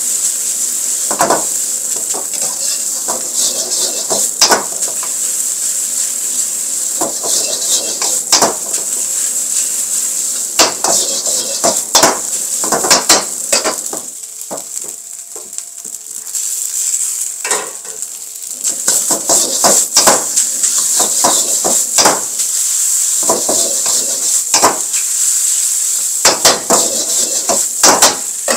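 Fried rice sizzling in a hot wok while a metal wok ladle scrapes and clanks against the wok again and again as the rice is stirred. For a couple of seconds just before the middle the clanks stop and only the sizzle goes on while the wok is tossed by its handle.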